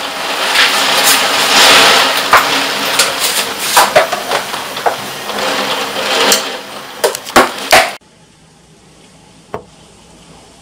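Torrential rain pouring down in a storm, a dense hiss with many sharp knocks against the window. About eight seconds in it cuts abruptly to a much quieter, steady rain hiss.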